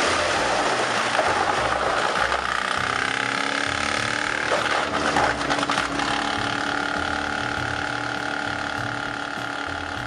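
Wood chipper's engine running steadily, with a few sharp knocks about halfway through; the sound slowly fades over the last few seconds.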